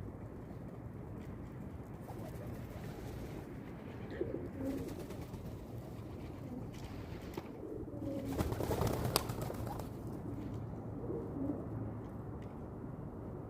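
Pigeons cooing in low, soft calls three times, over a steady low background noise. A brief louder burst of noise with a sharp click comes about nine seconds in.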